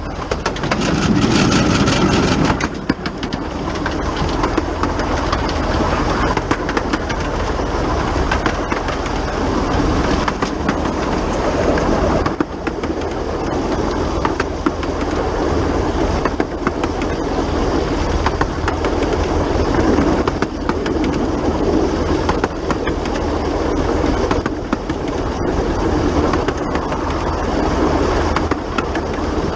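The Bug, a small 15-inch-gauge Krauss 0-4-0 steam locomotive, heard from right on the engine while running at speed. It makes a continuous loud running noise with a steady clatter of motion and wheels on the track, louder for the first two or three seconds.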